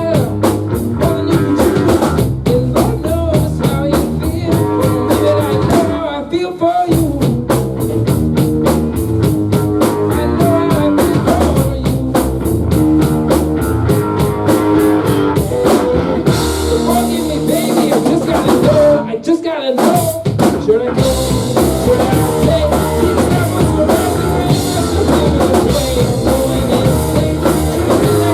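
A rock band playing live: drum kit, electric guitar and bass, with brief drum breaks about six and nineteen seconds in.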